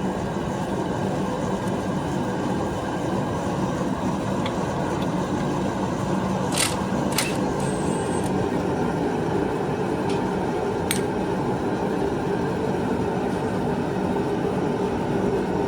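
A space heater runs with a steady whir and low hum, and a few sharp metallic clicks from hand tools come partway through.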